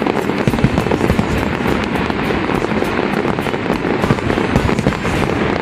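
Fireworks going off in a dense, continuous barrage of rapid crackles and bangs with no pause.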